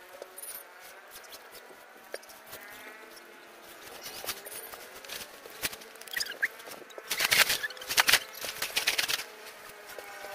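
Tent fabric rustling and crinkling as a tent is pulled out and shaken open, loudest in a run of rustles about seven to nine seconds in.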